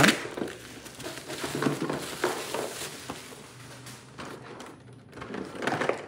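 Black plastic bubble-wrap packaging being torn open and pulled apart by hand: irregular crackling and rustling with small sharp snaps, louder again near the end.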